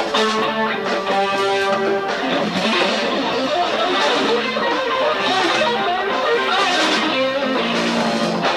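Live band playing an instrumental passage: electric guitar out front over bass guitar and drums, with no singing.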